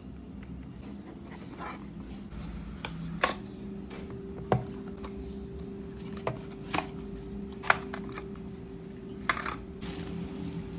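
Handling of flashlight packaging: about six sharp clicks and taps scattered through, over a steady low hum.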